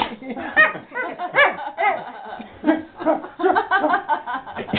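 Siberian husky "talking": a string of short yips and whining howls, each bending up and down in pitch.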